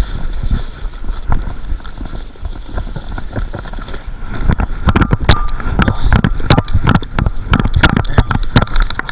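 Irregular knocks and thumps from handling a freshly landed fish on the ice, coming faster and louder about halfway through, with wind rumbling on the microphone.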